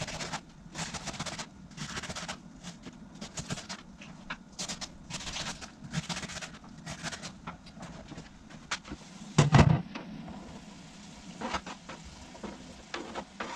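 Kitchen knife cutting red cabbage on a chopping board: irregular cutting strokes and knocks of the blade on the board. A single heavy thump comes about two-thirds of the way in.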